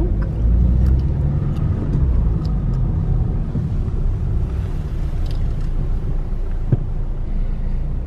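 Renault car's engine and road noise heard from inside the cabin while driving: a steady low rumble with a single short knock near the end.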